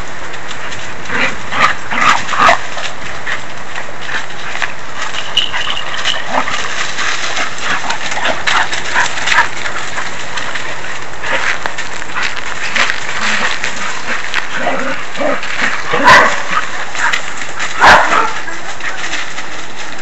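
Several dogs play-fighting, with short barks and yips scattered through and two loud barks in the last few seconds, over a steady hiss.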